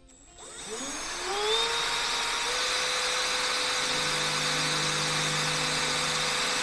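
Milwaukee M18 cordless drill boring a pilot hole into an aluminum window frame: the motor spins up with a rising whine, then runs at a steady high whine, with a lower drone joining about four seconds in as the bit works through the metal.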